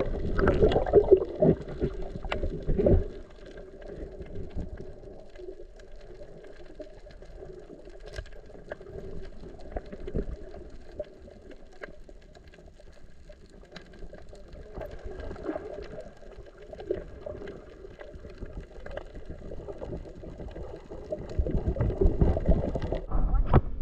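Muffled underwater sound from a submerged camera: a steady dull hum with scattered faint clicks. It is louder and rougher in the first few seconds and again near the end.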